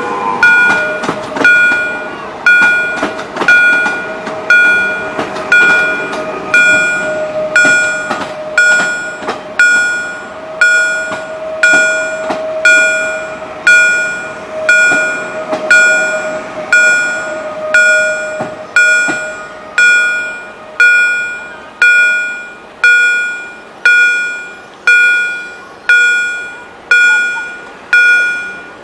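EHL railroad crossing bells striking about once a second, each strike ringing out, while a train passes over the crossing. The train's clatter and a steady hum fade away about two-thirds of the way through, and the bells keep ringing.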